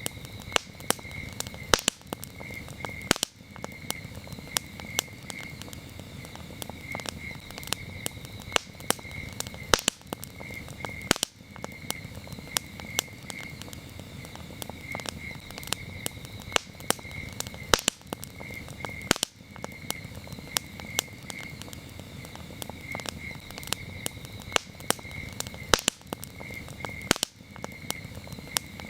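Campfire crackling, with frequent sharp pops over a low steady rumble, while crickets chirp in a continuous high pulsing trill.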